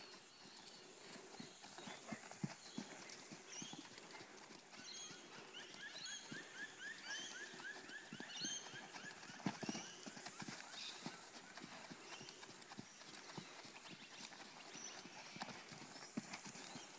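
Hoofbeats of a ridden Welsh Section C cob cantering on the sand footing of an arena, an uneven run of dull beats.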